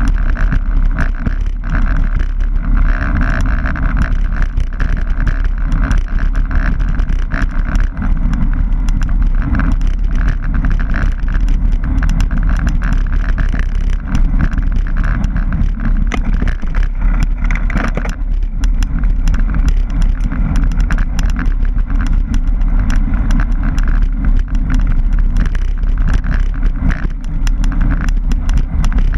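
Wind buffeting the microphone over the steady rumble of a mountain bike riding fast on a rough dirt trail, with many quick rattles and knocks from the bike over bumps and stones.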